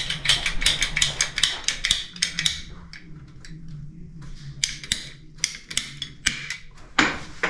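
Hand tools and pipe being handled: a quick run of sharp clicks and clacks for the first two seconds or so, then scattered single clicks, over a low steady hum.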